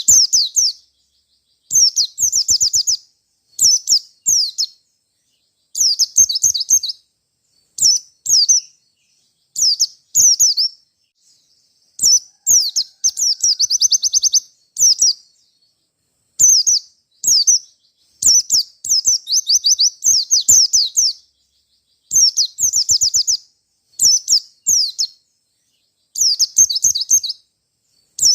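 A white-eye (pleci) singing its fighting challenge song: rapid, high-pitched twittering phrases about a second long, repeated roughly every two seconds with short silent gaps between them.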